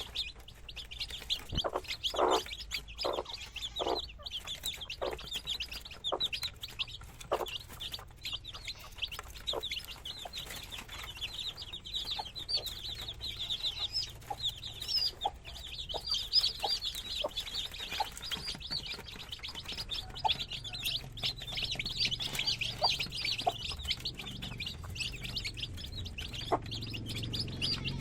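Chickens clucking, with short calls spaced about a second apart in the first part, over a constant chatter of high-pitched peeps and chirps. A low rumble builds near the end.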